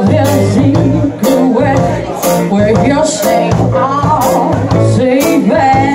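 Live rock band playing, with electric guitars, drums and keyboard under a singer's voice; drum and cymbal hits keep a steady beat about twice a second.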